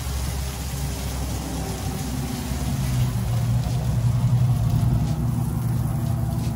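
A car's engine passing on the street, its low hum building to a peak about four seconds in and then fading.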